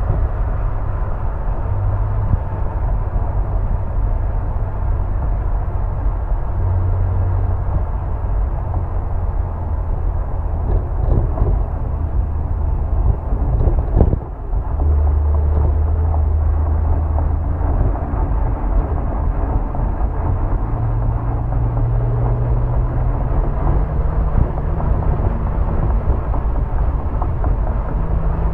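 Porsche 911 Carrera 997.2's 3.6-litre flat-six exhaust, picked up by a microphone outside near the tailpipe, running steadily at highway cruising speed. About halfway through, a PDK gear change briefly cuts the sound and the engine note drops lower. Over the last several seconds the note rises steadily as the car accelerates.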